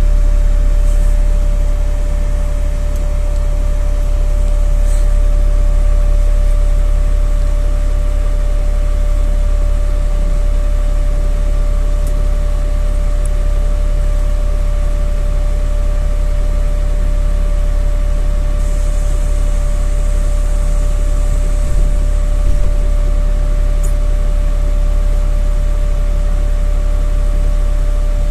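NefAZ bus's running noise heard inside the cabin on the move: a steady deep rumble with a constant hum over it. A few faint high ticks, and a short hiss about two-thirds of the way in.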